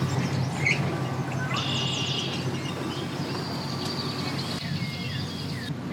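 An engine idling with a steady low hum, with birds chirping over it.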